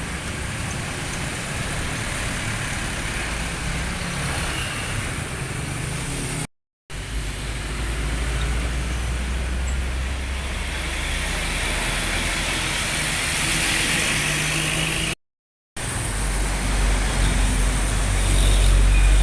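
Buses and road traffic passing: engine rumble with tyre and road noise. The rumble grows heavier and loudest near the end as a bus passes close. The sound cuts out briefly twice between clips.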